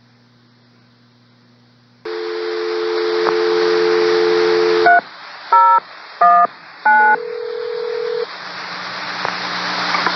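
Railroad two-way radio on a scanner: about two seconds in a transmission opens with loud static hiss and a steady two-note tone. Then come four short touch-tone-style signalling beeps and a longer single tone, with open-channel hiss after them.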